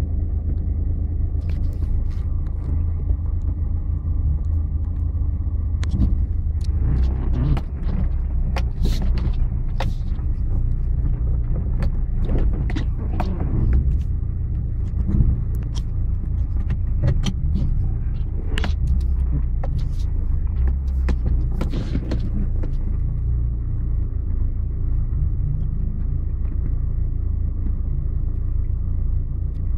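4x4 off-roader's engine running at crawling speed, heard from inside the cab as the vehicle creeps over a rocky trail. A steady low drone is broken through the middle stretch by a run of sharp knocks and rattles as the vehicle jolts over rocks.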